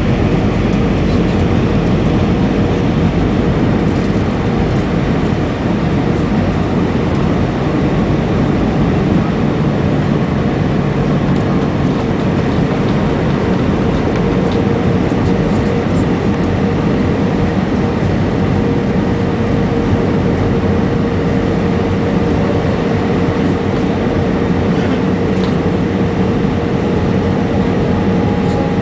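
Steady loud cabin noise of an Airbus A320 in flight on approach: jet engines and rushing air, with a steady hum running through it.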